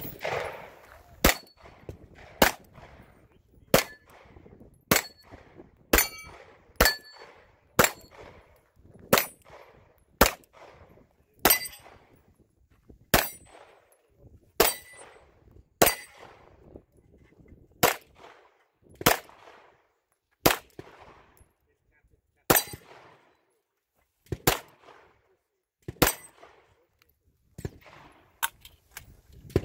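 About two dozen pistol shots in an uneven string, roughly one a second, fired at steel targets, with a metallic clang or ring of steel plates being hit.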